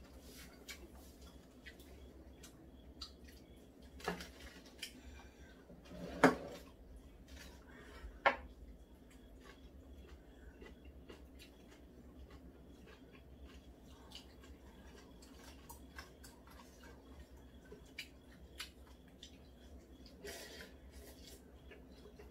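Chopsticks clicking and scraping against noodle bowls and a pot while eating, in light scattered taps, with three louder knocks about 4, 6 and 8 seconds in.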